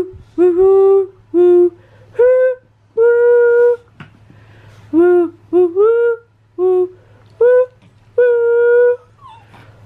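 A voice humming a wordless tune in a dozen separate notes, some short and some held, many sliding up into pitch at the start. A faint steady electrical hum lies underneath.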